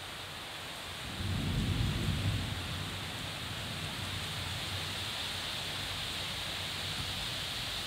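Heavy rain hissing steadily, with a low rumble of thunder coming in about a second in, loudest for a second or so, then dying away under the rain.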